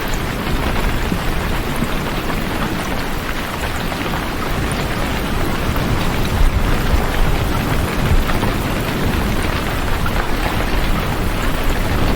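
Heavy rain falling steadily, a dense hiss with a deep continuous rumble beneath it.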